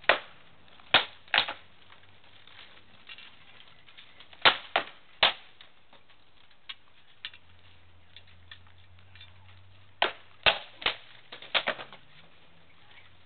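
Weapons striking shields and armour in armoured sparring: sharp knocks in three flurries, one at the start, a second about four and a half seconds in, and a third about ten seconds in.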